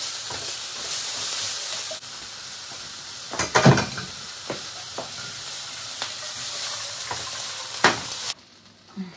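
Mangetout and peppers sizzling in a hot non-stick frying pan, stirred with a slotted spatula that knocks and scrapes against the pan several times, loudest about three and a half seconds in. The sizzle cuts off suddenly near the end.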